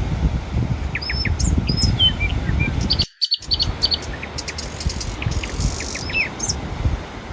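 Small birds chirping in many short, high calls over a steady low rumble of wind and surf. The sound cuts out for a moment about three seconds in.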